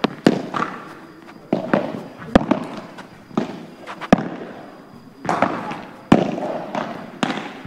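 Padel balls being struck by rackets and bouncing on the court: a string of sharp, irregular pops, roughly one or two a second, each with a short ring after it.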